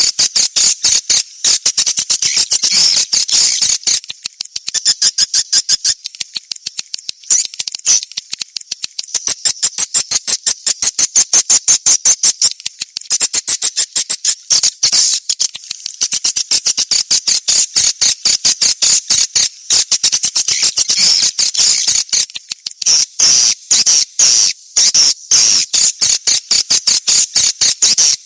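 Swiftlet call-sound recording of the kind played to lure swiftlets into a nesting house. It is a dense stream of rapid, high-pitched chirping twitters, several a second, with brief dips in loudness.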